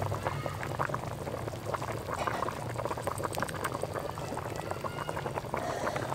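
Pot of beef stew boiling hard, with a dense crackle of bubbles popping at the surface, while a thin stream of liquid is poured into it. A steady low hum runs underneath.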